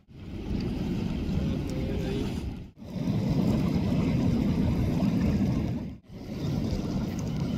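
Wind buffeting the microphone over the steady wash of surf and river water, dropping out briefly twice.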